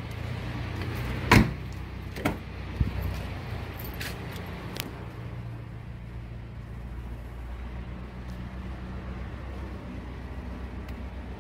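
A few sharp knocks and bumps inside a car cabin, the loudest about a second and a half in, over a steady low hum.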